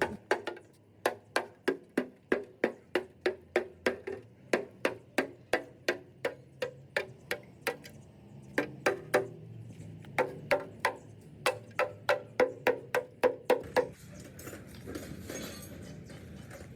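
Steady hammer blows on metal, about three strikes a second, each ringing briefly, with two short pauses. The hammering stops about 14 seconds in.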